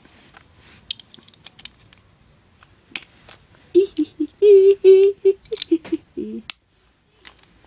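Beyblade parts clicking and tapping as they are fitted together by hand. About four seconds in, a pitched hum comes in as short broken notes with one longer held note, dropping in pitch at the end; this hum is the loudest sound.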